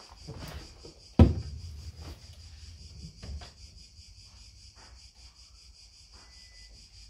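Upright piano's fallboard being opened: one loud knock about a second in as the wooden key cover folds back, with a short low ring, then a few quiet handling clicks on the case.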